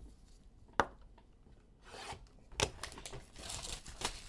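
Plastic wrapping crinkling and tearing as a box of football cards is opened by hand, with a sharp tick about a second in and another a little past halfway.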